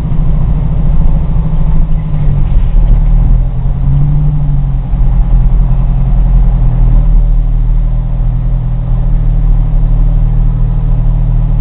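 Fire engine's diesel engine running loud and steady, its pitch rising slightly about four seconds in.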